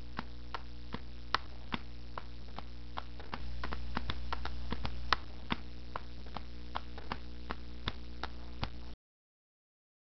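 A steady low hum with faint irregular clicks, about two or three a second, cutting off abruptly about nine seconds in.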